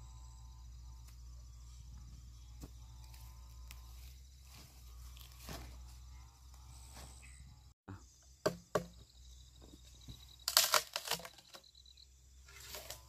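Steady insect trilling over a low hum. After a cut, two sharp knocks, then a loud cluster of crackling, tearing noises about two and a half seconds later, and another shortly before the end.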